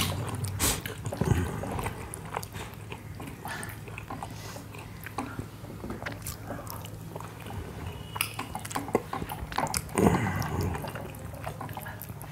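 Close-miked eating by hand: chewing, lip smacks and fingers working soft buckwheat dhido in a metal plate, heard as many small scattered clicks and smacks over a low steady hum.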